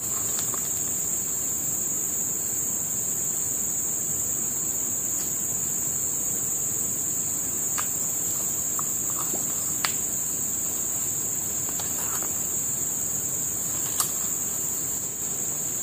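Steady, high-pitched drone of an insect chorus, with a couple of short clicks in the second half.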